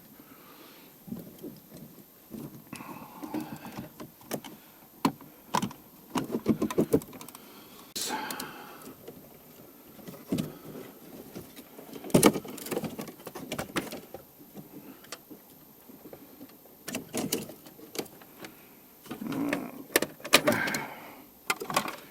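Irregular clicks, knocks and small rattles of hands and tools working loose the plastic dashboard trim inside a car.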